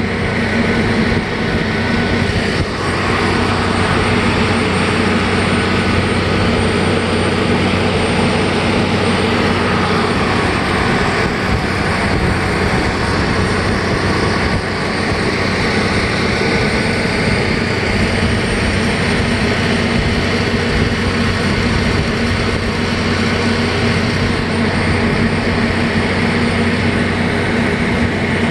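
Ferry boat's engine running with a steady, unbroken drone under way across the river.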